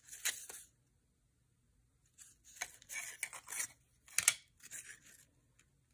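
Thin balsa-wood tags rustling and scraping against each other as they are handled and fanned through by hand, in scattered short strokes with one sharper click about four seconds in.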